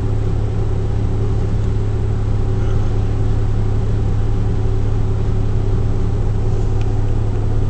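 Saab 9000 on the move at a steady speed, heard from inside the cabin: an even, low engine and road drone that holds constant without revving.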